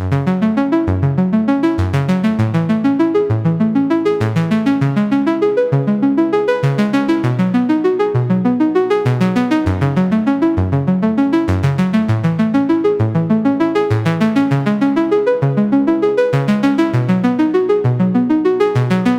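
Synthesizer arpeggio: a fast, evenly pulsing pattern of short, repeating pitched notes.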